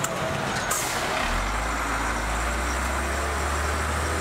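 Diesel engines of DAF fire trucks driving slowly past at close range, a steady low drone, with a brief hiss of air just under a second in.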